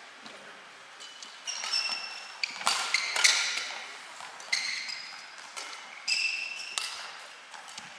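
Badminton rally: sharp racket strikes on the shuttlecock, roughly once a second, with high shoe squeaks on the court floor between them. The first second or so holds only quiet hall noise before play picks up.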